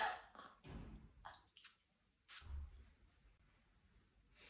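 A small pump spray bottle squirts a short hiss of mist into an open mouth at the start, followed by soft breaths and a few faint clicks.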